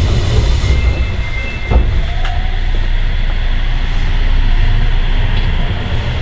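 Sendai Subway Namboku Line 1000 series train running, heard from inside the passenger car: a steady loud rumble of wheels on rail, with a single knock a little under two seconds in.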